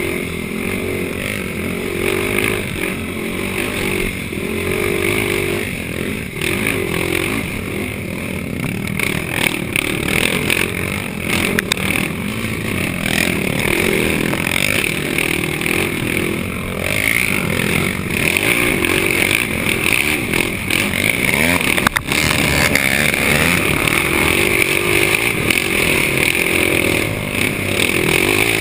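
Yamaha YFZ450 quad's single-cylinder four-stroke engine running hard under racing load, its pitch rising and falling as the throttle comes on and off. There is one sharp knock about three-quarters of the way through.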